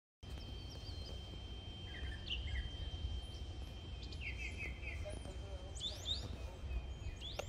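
Songbirds chirping and calling in short, quick phrases, over a thin steady high tone and a low rumble underneath, starting after a brief silence.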